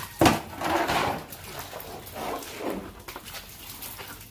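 A large plastic basin knocks sharply once just after the start, followed by about a second of water splashing, then a few softer sloshes and knocks.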